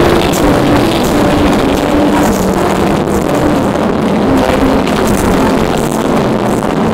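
Live pop concert music with crowd noise in an arena, recorded so loud that the phone's microphone overloads into a dense, steady distorted wash, with the melody barely showing through.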